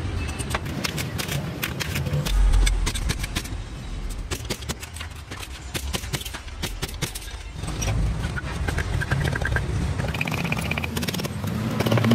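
Thin steel transformer laminations clinking and rattling as they are cut on a hand shear, sorted and stacked, with many sharp metallic clicks and a heavy thump about two and a half seconds in. A low rumble grows in the background after about seven seconds.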